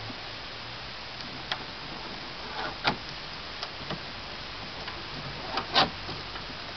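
Red nylon tie-down straps being handled and tied off against the back of a car: a few scattered light clicks and taps, with two louder brushing taps about three and six seconds in.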